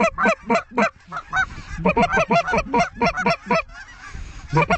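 Snow goose honking: rapid, evenly paced high honks, about four to five a second, in runs that break off briefly about a second in and again near the end.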